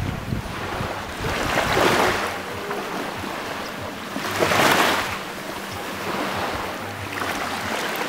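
Small waves lapping on a sandy shore, each wash swelling and fading, about every three seconds. Wind rumbles on the microphone in the first couple of seconds.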